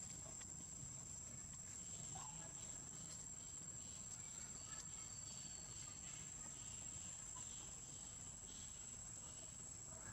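Faint, steady high-pitched insect drone, with a low background rumble.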